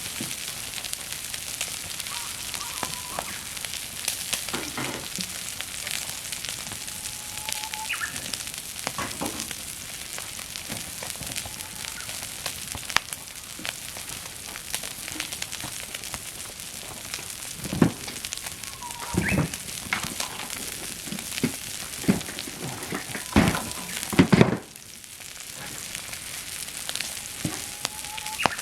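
Meat sizzling over a campfire, a steady hiss dotted with frequent pops and crackles. Several louder knocks and pops come in the second half, and then the hiss suddenly drops quieter.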